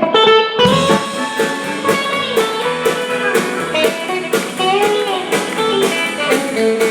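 Live country-rock band playing the instrumental intro of a truck-driving song, guitar over a steady drum beat, kicking in right after the count-in.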